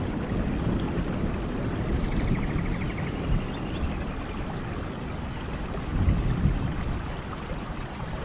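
Steady rain falling, with low rumbling swells, the strongest about six seconds in. About four seconds in, an animal gives a quick run of four short, high chirps, and a faint rapid trill sounds earlier.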